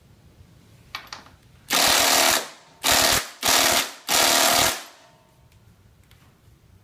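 Power impact driver hammering at a bolt in four bursts of about half a second each, after two light clicks about a second in.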